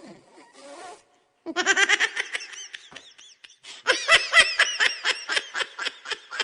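Laughter sound effect: a faint breathy sound, then quick high-pitched bursts of laughing about one and a half seconds in, a short break, and a louder, faster run of laughter from about four seconds in.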